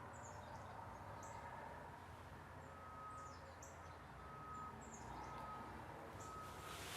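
Faint birds chirping: short high chirps throughout, joined about three seconds in by a short note repeated roughly once a second.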